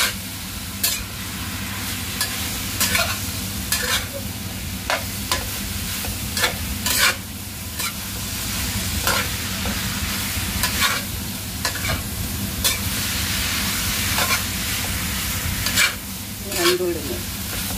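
Bitter melon, salted fish and tempeh stir-frying in a stainless steel wok: a steady sizzle, with a metal spatula scraping and knocking against the pan every second or so as the food is tossed.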